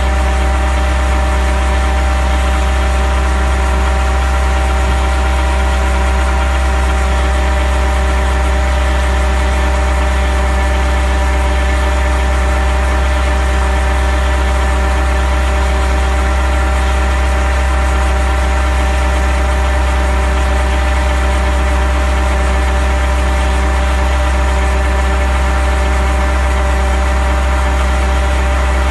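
Engine of a drilling rig running steadily at a constant speed, with a deep, unchanging hum.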